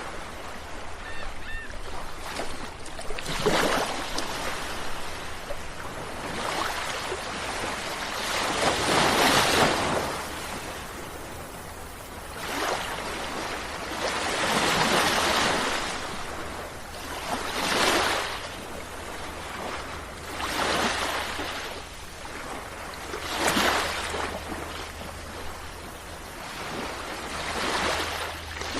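Sea waves surging and breaking, with a loud rush of surf about every three to six seconds between quieter washing.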